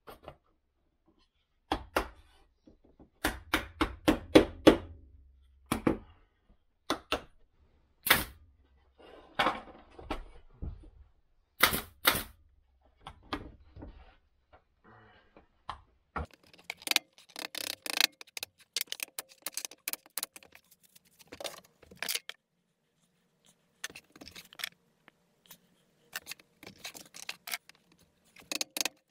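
Wooden beehive frame parts being assembled on a workbench. First a quick run of sharp knocks and taps, then several single loud strikes a second or so apart, then a long stretch of light, irregular clattering as the wooden pieces are handled and fitted.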